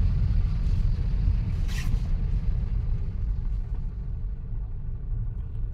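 Low, steady rumble of a car's engine and road noise heard from inside the cabin, easing slightly toward the end, with a brief faint rustle about two seconds in.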